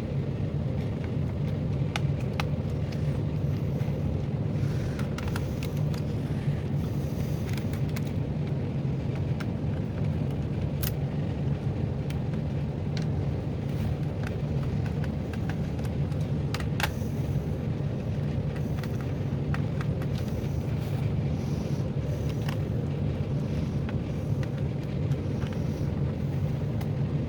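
Small scattered clicks and ticks of a screwdriver taking out the screws of a laptop's bottom cover, over a steady low mechanical hum.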